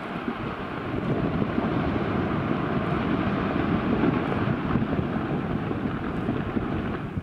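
Rockfall down a snowy mountain slope: a steady, crackly rumble of tumbling rock and ice that swells about a second in, mixed with wind buffeting the microphone.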